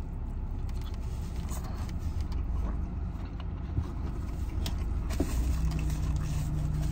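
Steady low hum of a parked car's idling engine heard inside the cabin, with a man chewing a taquito and a couple of faint small clicks.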